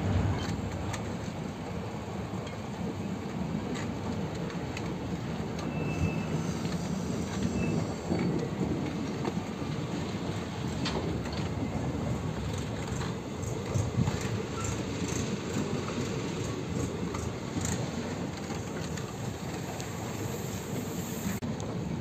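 Passenger train coaches rolling past close by: a steady rumble of steel wheels on the rails, with scattered short clicks throughout.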